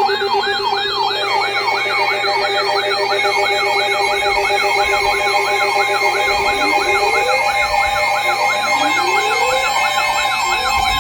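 Several emergency weather alert alarms sounding at once, set off by an incoming severe thunderstorm warning. Fast sweeping yelps, about three a second, are layered over steady tones and a high warble, and slower rising whoops join about halfway in.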